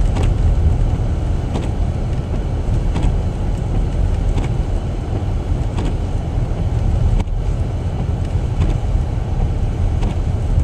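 Steady low rumble of a car driving, heard from inside, with a faint tick about every second and a half.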